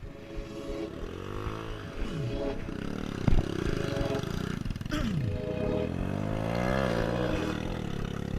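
Trail motorcycle engine running, its pitch rising and falling several times as the throttle is worked. There is a sharp knock about three seconds in.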